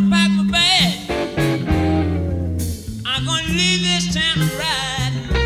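Blues-rock music with electric guitar, bent and wavering lead notes over a moving bass line, played back from a cassette tape on an Akai GX-93 deck.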